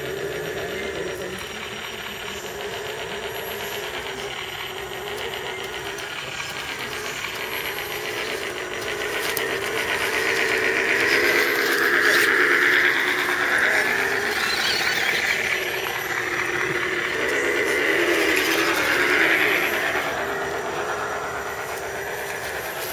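Electric motors and gear trains of scale RC crawler trucks whining as they crawl over tree roots. The whine grows louder about ten seconds in, rising and falling in pitch as a green tube-chassis rock buggy drives past close by, then settles back.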